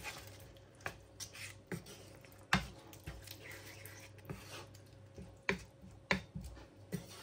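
Wooden spatula stirring a thick minced-beef tomato sauce in a nonstick frying pan: a few soft, separate taps and knocks of the wood against the pan, the loudest about two and a half seconds in, over a faint low hum.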